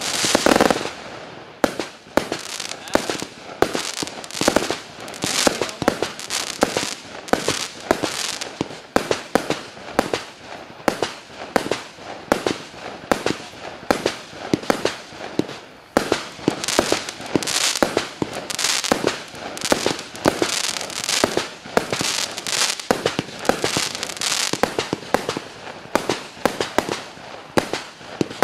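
A 200-shot, 0.8-inch consumer fireworks cake (Triplex TXB817 Pina Colada) firing continuously: a rapid string of sharp pops and bangs as its shells launch and burst, several a second.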